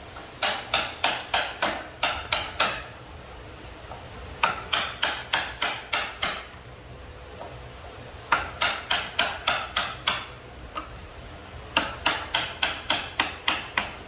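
Hammer striking a wood chisel, chopping a notch into the end of a pine 2x4. The blows come in four runs of about eight quick strikes each, roughly three or four a second, with short pauses between runs.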